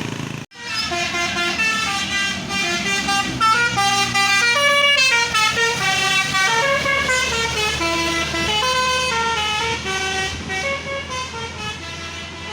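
Bus telolet horn, a set of musical air-horn trumpets, playing a multi-note melody: several tones sound together and step up and down in pitch. It starts after a brief drop-out about half a second in, over a low steady hum.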